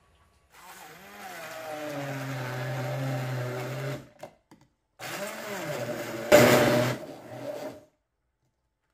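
Hand-held immersion blender puréeing bell peppers with their skins in a tall plastic beaker. It runs in two bursts of about three seconds each: the motor winds up and runs steady, stops, then runs again, with a louder, harsher stretch partway through the second burst.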